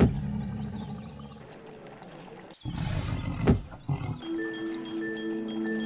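Cartoon dinosaur roar sound effects, each with a sharp crack: one right at the start and another about three seconds in. From about four seconds in, a steady bright musical chord holds.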